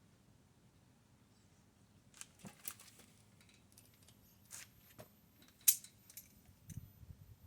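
Scattered sharp metallic clinks and clicks of hand tools and brake hardware being handled. They start about two seconds in, are irregular, and the loudest comes a little past the middle.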